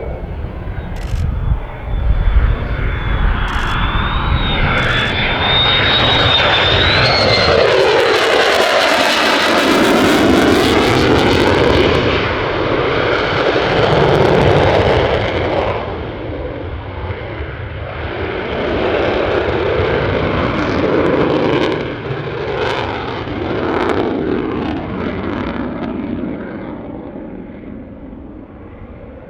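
Lockheed Martin F-35A Lightning II's single Pratt & Whitney F135 turbofan making a pass. A thin high whine comes first, then loud, broad jet noise whose pitch sweeps as the jet goes by, and it fades away over the last several seconds.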